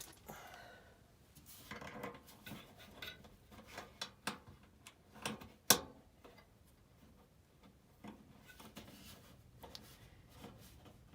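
Small metal parts and tools being handled: scattered clicks, light clinks and rubbing, with one sharp click a little before six seconds in.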